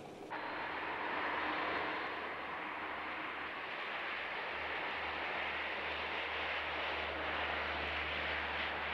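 Aircraft engines running steadily: an even rushing noise with a low rumble underneath, starting abruptly a moment in.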